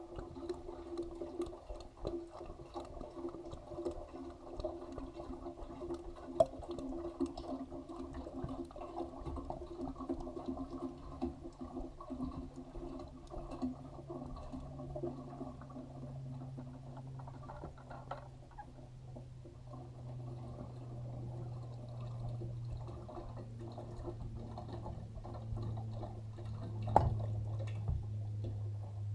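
Fresh hydraulic oil pouring steadily from a bucket into an excavator's hydraulic tank during refilling, with a knock near the end.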